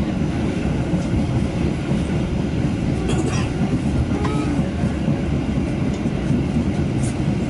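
Steady low rumble of a Kereta Api Indonesian passenger train running along the track, heard from inside the carriage.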